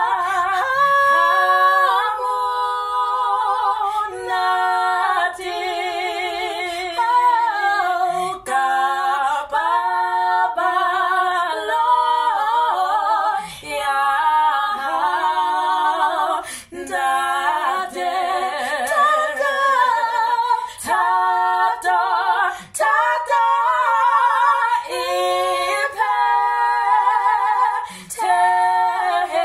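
Two women singing a cappella in harmony, their voices wavering with vibrato, with short breaths between phrases.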